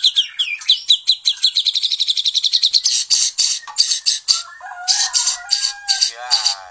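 White-rumped shama (murai batu) singing: a fast run of repeated high chirping notes for about three seconds, then harsh rasping notes in quick bursts, mixed with lower whistled phrases and a quick falling trill near the end.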